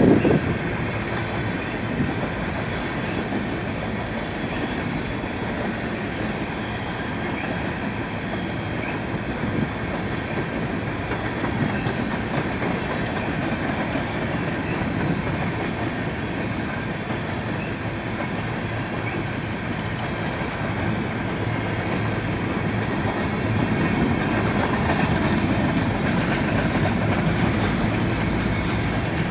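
BNSF coal train's cars rolling past in a steady rumble, the wheels clattering over the rails, with faint high wheel squeal.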